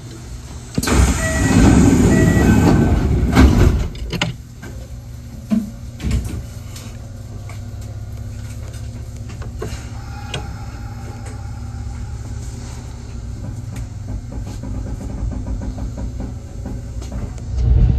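Kintetsu 1021 series electric train heard from the driver's cab as it pulls away from a station. About a second in there is a loud rush of noise with a few short electronic tones, lasting about three seconds. After that the train runs on with a steady low rumble and a faint motor whine.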